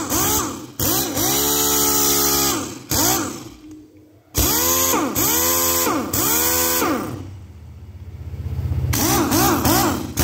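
Pneumatic impact wrench run free in a series of short trigger bursts: the air motor's whine rises and falls with each pull over the hiss of exhaust air, with quicker pulses near the end. The tool has just been repaired after its mechanism was stuck and is being test-run.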